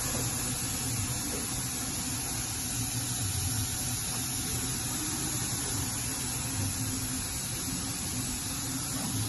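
Steady machinery hum with an even hiss over it, unchanging throughout, with no speed changes or impacts.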